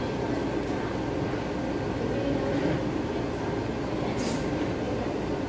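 Steady restaurant background noise: a low hum with a faint murmur behind it, and a brief soft rustle about four seconds in.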